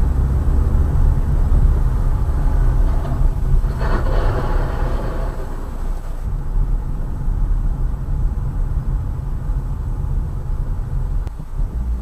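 Steady low road and engine rumble of a moving car, heard from inside the cabin. A higher-pitched sound lasts about two seconds, starting about four seconds in.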